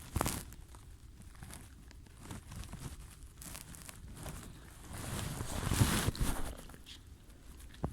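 Muffled rustling and scuffing of clothing over a phone's microphone while the phone records from inside a pocket, with footsteps. The rustling swells to its loudest about six seconds in, with a sharp knock near the start and another near the end.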